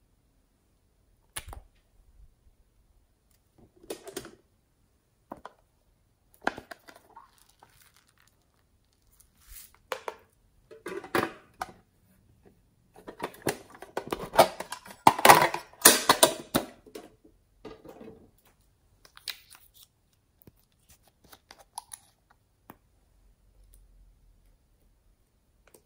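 Close-up handling of slime-making supplies: scattered clicks and taps, with a denser, louder stretch of crinkly rustling about halfway through.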